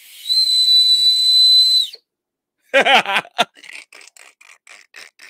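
A small emergency whistle that comes attached to a New Balance x Salehe Bembury 574 Yurt sneaker, blown once as one steady, high, breathy note for about two seconds. A man then bursts out laughing in short breathy pulses.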